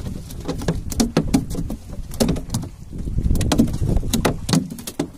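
Irregular sharp knocks and taps, several a second, over a steady low rumble on a small fishing boat.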